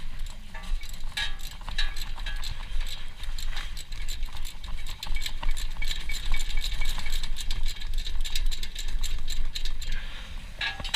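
Ratchet wrench clicking rapidly and unevenly as it works a tight brake caliper bolt loose.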